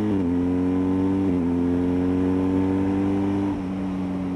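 BMW motorcycle engine with an aftermarket Akrapovič exhaust pulling under acceleration, its pitch dropping at each upshift, about a second in and again near the end, then climbing again.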